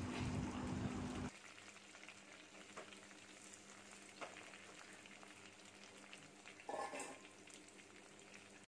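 Chopped green chillies, ginger and garlic sizzling in hot sesame oil in a clay pot, louder for about the first second and then settling to a low, steady sizzle with a few faint crackles. A short louder burst comes about seven seconds in, and the sound cuts off just before the end.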